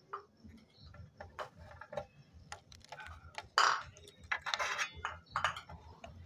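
Hands rolling a softened cabbage leaf around its filling on a metal tray: scattered soft crinkling and rustling of the leaf with light taps and clicks, the loudest crinkles a little past halfway.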